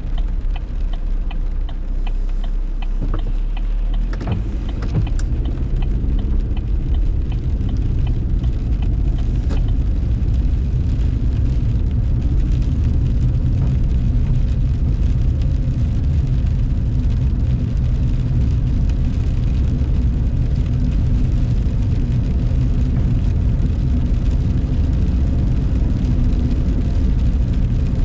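Car cabin noise while driving on rain-soaked pavement: a steady low engine and tyre rumble, with light clicking in the first few seconds. The rumble fills out about four seconds in as the car gets under way.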